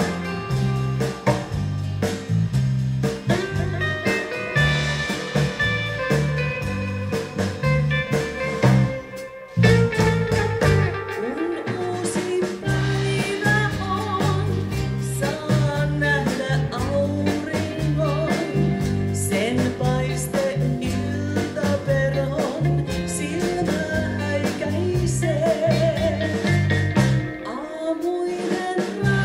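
Live rautalanka band playing: guitars, bass guitar and drum kit with a steady beat, and a voice singing over them. The band stops for a moment about nine seconds in, then comes back in.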